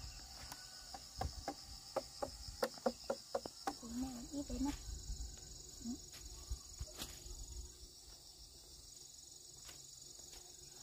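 Field insects chirring steadily in a high register. In the first few seconds there is a quick run of light knocks and clicks, followed by a brief low murmuring voice.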